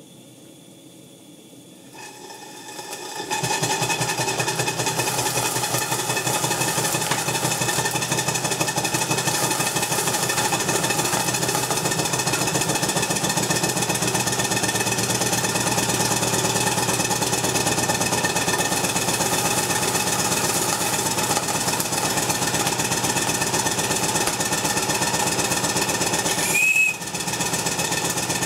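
Live-steam 1:10 scale Markie plough engine model starting up about three seconds in, then running fast and steady in a rapid, even mechanical beat. A brief sharp squeak cuts in near the end.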